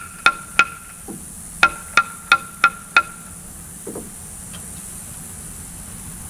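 Hammer blows ringing on steel, driving a bolt down into a drilled timber beam: eight sharp strikes in two quick runs, three then five, about three a second, stopping about three seconds in.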